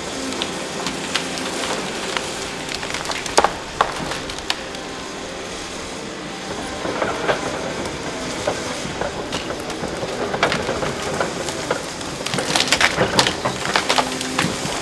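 Heavy tracked excavator, a Cat 330 built on a feller buncher undercarriage, running steadily with a constant engine hum. Over it come clanking and the cracking and splintering of wood as it works through slash and stumps, with two sharp cracks about three and a half seconds in and a stretch of dense crackling near the end.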